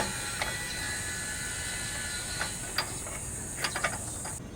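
Scattered metallic clicks and taps of a ratchet and oxygen-sensor socket being worked onto an exhaust oxygen sensor, a few single clicks, then a quick cluster near the end, over a steady faint hiss that cuts off suddenly near the end.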